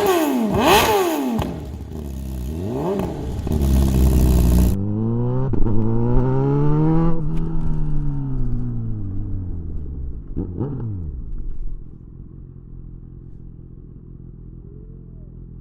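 Kawasaki Ninja 1000SX inline-four engine through an aftermarket exhaust, revved in quick blips, then rising and falling in pitch through one long pull, blipped once more, and settling to a quieter steady running near the end. The sound turns suddenly muffled about five seconds in.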